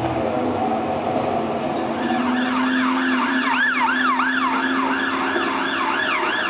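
Ambulance siren on its fast yelp, the pitch sweeping up and down about twice a second, coming in about two seconds in over the hum of street traffic.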